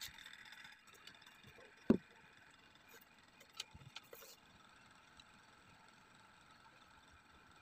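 Handling of cardboard pieces on a tabletop: one sharp knock about two seconds in, then a few faint clicks, over a low steady hiss.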